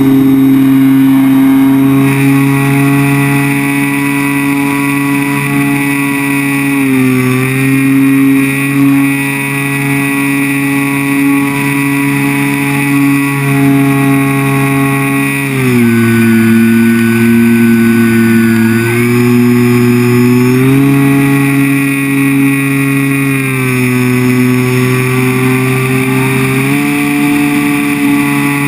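The electric motor and propeller of a ParkZone Extra 300 RC plane whine steadily in flight, muffled by the GoPro's waterproof housing. The pitch drops and climbs back a few times, most markedly about halfway through.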